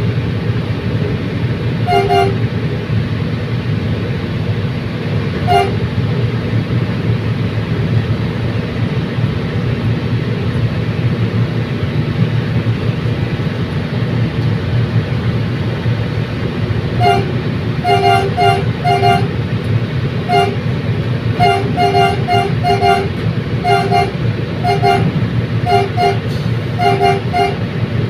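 Bicol Commuter train running with a steady low rumble, its horn sounding in short toots: a single toot twice early, then rapid repeated toots from about 17 seconds in.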